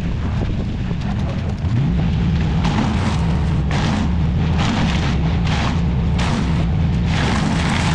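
Engine-driven wood chipper, a Jensen A540, starting to run and revving up about two seconds in. It then chews through branches in a run of loud crackling surges, about one or two a second.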